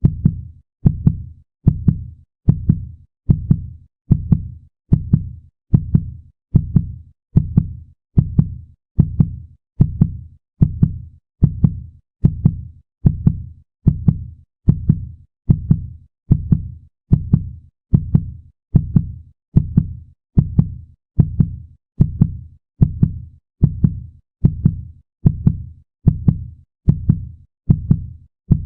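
Fast heartbeat sound effect: a steady pulse of low thuds, about one and a half beats a second, each beat fading quickly.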